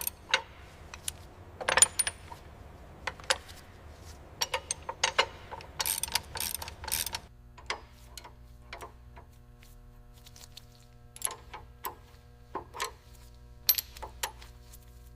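Small metal parts and tools clinking and tapping as they are handled: irregular sharp metallic clicks, most frequent in the first half, over a faint steady hum.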